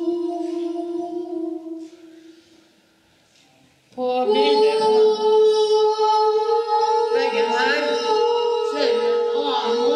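Voices singing without accompaniment. A long held note fades out about two seconds in, and after a brief hush voices come in again about four seconds in, one holding a steady note while others move above it.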